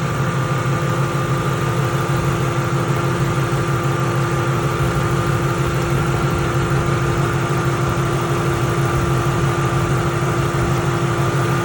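Ford Mustang's engine idling steadily under the hood, a constant pulsing hum with a few steady whining tones over it.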